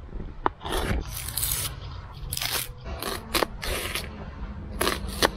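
Kitchen knife cutting bell pepper and onion on a plastic cutting board: a series of irregular cutting strokes, one after another.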